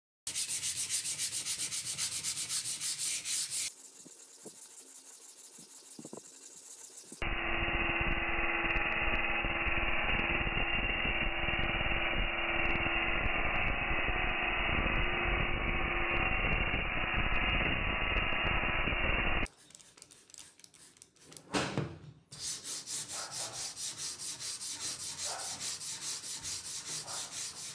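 A bench grinder's wire wheel running briefly. Then a handheld rotary tool with a small abrasive disc grinds rust off a steel hand-saw plate for about twelve seconds, its motor giving a steady whine under the grinding noise. After a short pause and a knock, a sanding block is rubbed back and forth over the saw blade in quick regular strokes.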